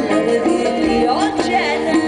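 Live concert music: a woman singing, her voice bending and gliding in pitch, over instrumental accompaniment.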